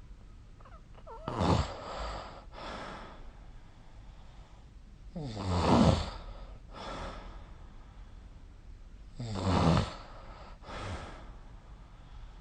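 A person snoring in their sleep: three loud snores about four seconds apart, each followed by a fainter sound.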